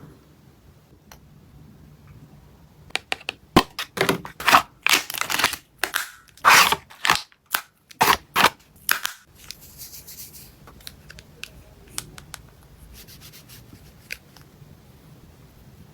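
Makeup box and its packaging being handled and unpacked by hand: a quick run of sharp clicks and crinkling rustles for about six seconds, then a brief soft hiss and a few scattered light clicks.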